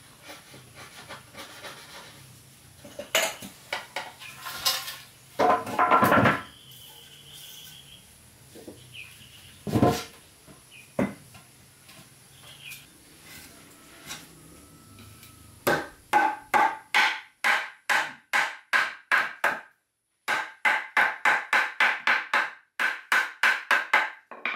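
Scattered knocks and rustles of wood being handled. Then, from about two-thirds of the way in, a hammer striking wood in a quick, steady rhythm of about three blows a second, each with a short ring, with a brief pause before it starts again.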